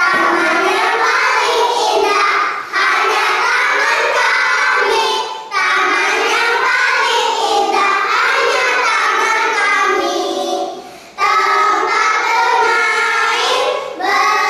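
Kindergarten children's choir singing together, with short breaks between sung phrases.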